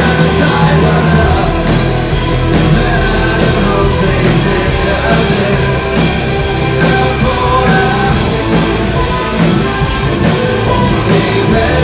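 Live rock band playing loud, with a singer's voice over the full band.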